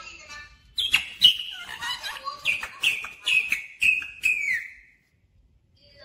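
Rose-ringed parakeet calling: a quick run of about eight short, high whistled notes, each falling in pitch, with sharp clicks in between. The calls stop about a second before the end.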